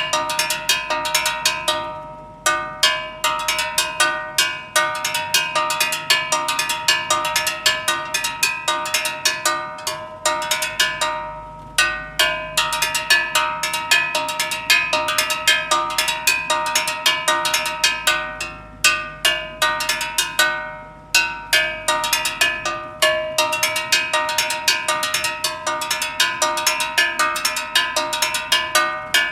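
A steel LPG gas cylinder struck in a fast, ringing metallic rhythm, many strikes a second, in phrases that break off briefly about every nine seconds. It is a Chilean gas vendor's call: a rhythm played on the cylinder to announce that the gas truck is passing.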